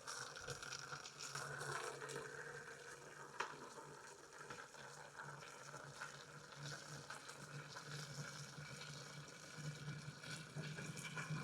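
Faint steady hiss and patter of water running from a garden hose into a chicken waterer, with a single sharp click about three and a half seconds in.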